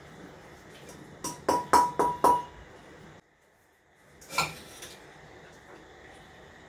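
Metal kitchenware knocked against a steel mesh strainer while pasta is drained: a quick run of about five ringing clinks a little over a second in, then a single clatter just after four seconds.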